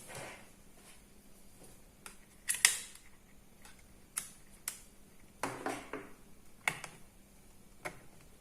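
Scattered clicks and taps of small laptop parts being handled and fitted back together, about half a dozen sharp ones with the loudest about two and a half seconds in.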